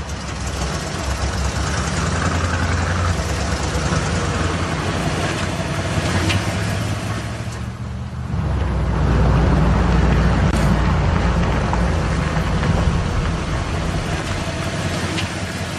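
Old pickup truck's engine running as it drives along a road, steady and low-pitched, getting louder a little past halfway.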